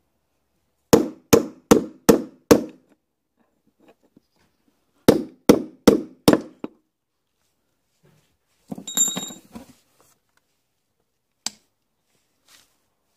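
Hammer striking a steel punch to drive the old bearing out of a sealed plastic washing-machine drum's hub: five quick blows, a pause, then four more. About nine seconds in, a short metallic clatter with a ringing tone, then a single sharp click.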